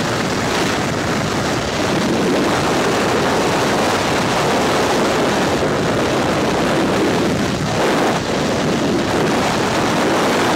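Freefall wind rushing over a skydiving camera's microphone: loud, steady noise with no tones, dipping briefly about eight seconds in.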